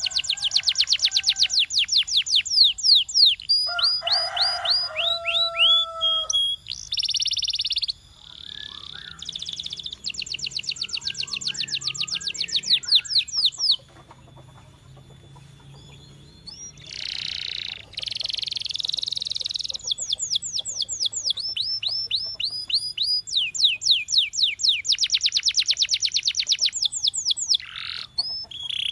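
Belgian canary singing: fast trills of rapidly repeated sweeping notes alternating with buzzy rolls, with a quieter pause about halfway through before the trills resume.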